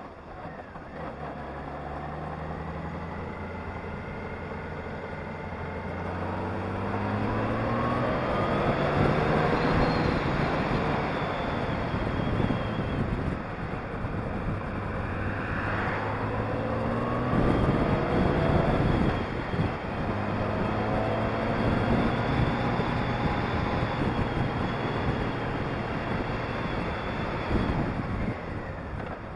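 Honda Gold Wing motorcycle engine under way, its note rising several times as it accelerates and dropping back in between, with wind rush over the bike growing louder at speed.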